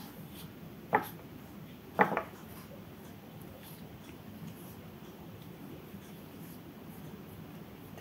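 Thin paintbrush with white gouache stroking across paper, a faint scratchy rubbing. Two sharp knocks cut through it, one about a second in and one about two seconds in.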